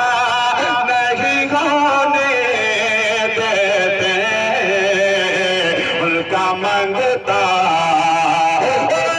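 A man's solo voice chanting devotional verse into a stage microphone, holding long notes with wavering, ornamented pitch and pausing briefly for breath twice near the end.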